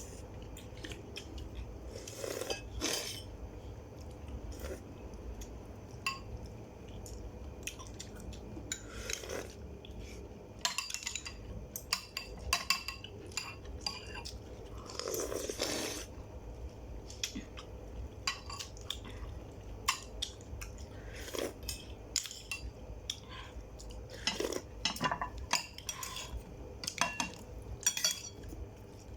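Cutlery clinking and scraping against dishes during a meal: scattered sharp clicks with a few longer scrapes, over a steady low hum.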